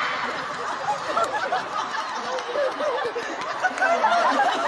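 Audience crowd chattering and laughing, many voices at once.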